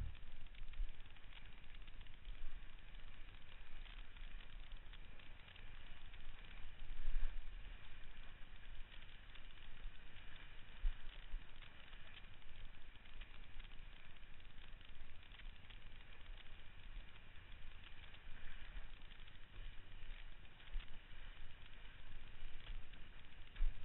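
Wind rumbling on the microphone of a rig-mounted camera over the hiss and slap of water under a sailboard moving through choppy sea, with small irregular splashes.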